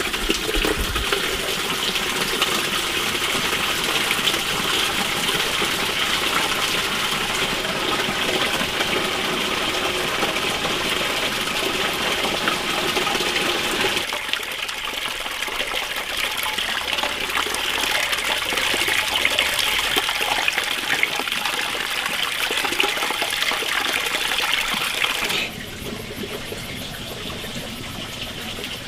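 Water running or gushing steadily, its sound changing abruptly about halfway through and again near the end.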